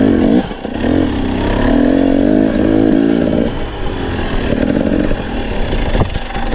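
Husqvarna TE250i two-stroke dirt bike engine revving up and down under changing throttle while riding, with its pitch dipping briefly a couple of times and a few knocks.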